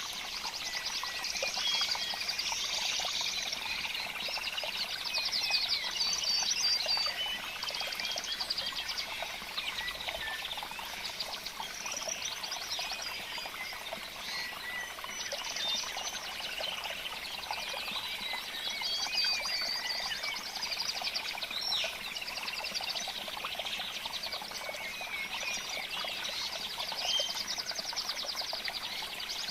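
Dense chorus of many small birds chirping and trilling, with calls overlapping continuously and short whistled notes on top.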